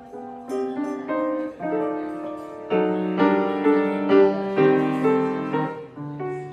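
Piano being played: a phrase of notes and chords that grows louder through the middle, then settles on a held low note near the end.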